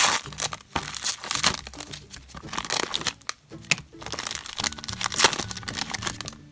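Wrapper of a big hockey card pack crinkling and tearing as it is ripped open by hand: a dense run of sharp crackles.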